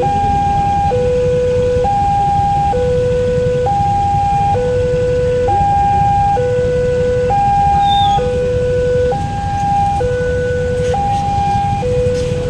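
Railway level-crossing warning siren sounding a two-tone hi-lo alarm: a higher and a lower tone alternate, each held just under a second. It repeats steadily over a low rumble.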